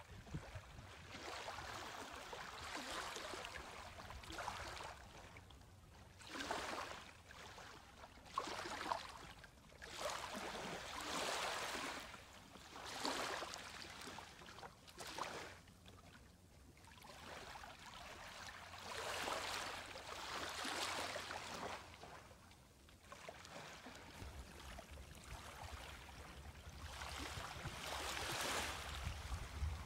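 Small, gentle waves of a calm sea lapping onto a sandy beach: soft hissing washes that swell and fade in irregular pulses a second or two apart.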